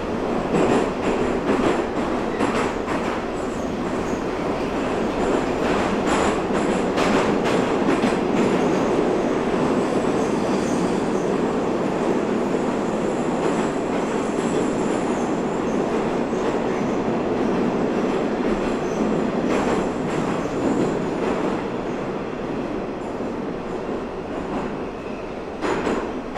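Metro train running underground, heard from inside the carriage: a steady loud rumble of wheels and running gear on the rails, with occasional clacks. It gets a little quieter over the last few seconds.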